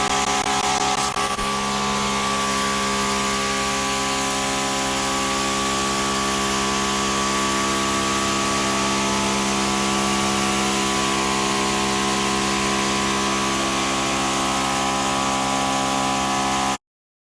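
Greenworks 2300 PSI electric pressure washer running steadily, its motor and pump humming under the hiss of the water spray on the driveway. The sound cuts off suddenly near the end.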